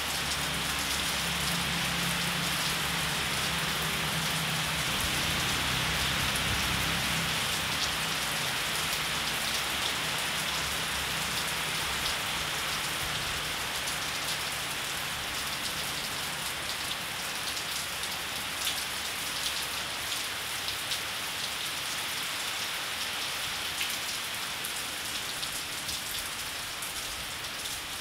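Steady rain falling on grass, trees and a wet concrete path, an even hiss. In the second half, single drops land close by and stand out as separate clicks.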